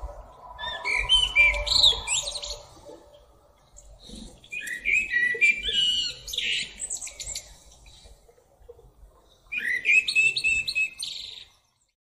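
Male common blackbird singing: three separate song phrases of quick, rising and falling notes, a couple of seconds apart. The song stops abruptly shortly before the end.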